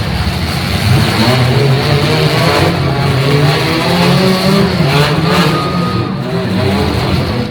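Several demolition derby cars' engines revving and running together, their pitch rising and falling as the drivers throttle up and back off.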